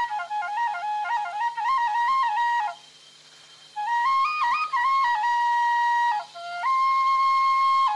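Background music: a solo flute melody moving in steps between held notes, breaking off for about a second a little before halfway.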